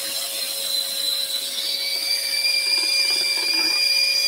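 Scroll saw running with its blade in a wooden workpiece that is being backed up through its own cut: a steady mechanical hum with a high whine that steps up in pitch about one and a half seconds in.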